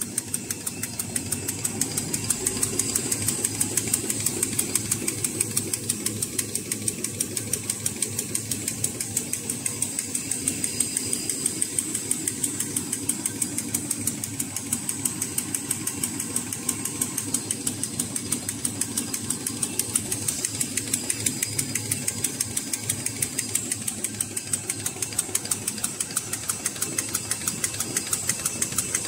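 Airlaid napkin paper making machine running at speed: a fast, even mechanical clatter over a steady machine hum.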